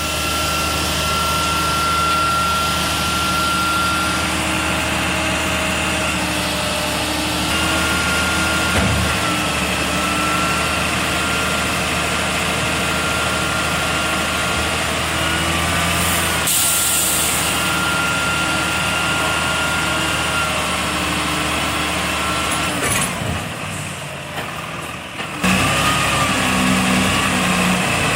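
Heavy truck's diesel engine running steadily, with a short air-brake hiss about two-thirds of the way through. The engine sound changes abruptly near the end.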